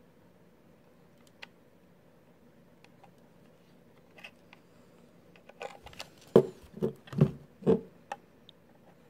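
Hard plastic parts of a Blink outdoor camera and its floodlight mount being handled while a cable plug is fitted: a few faint clicks, then from about halfway a quick run of louder plastic knocks and clicks.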